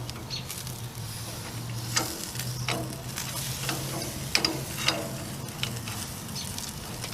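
Steak and vegetable kebabs sizzling steadily on a hot grill, with several sharp clicks of stainless steel skewers knocking on a metal kebab rack as they are turned.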